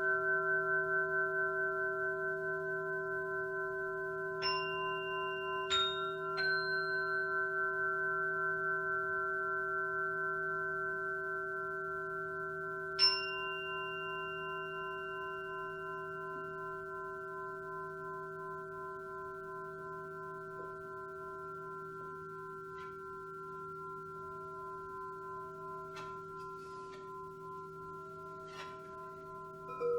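Singing bowls ring out together in several sustained tones that pulse gently and slowly fade. A few bright, high-pitched metallic strikes ring over them about four to six seconds in and again at about thirteen seconds.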